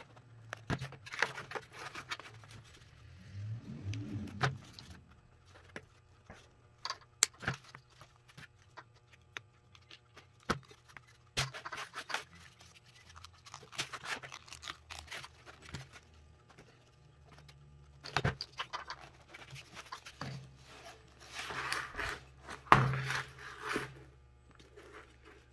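Scattered clicks, scrapes and rustles of hands working a Honda GL1200 Gold Wing instrument cluster's wiring harness, with diagonal cutters snipping open the harness wrap to reach mouse-chewed wires.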